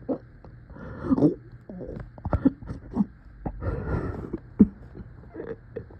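A painful-sounding coughing fit: several short, sharp coughs or hacks, with two drawn-out strained voiced sounds between them.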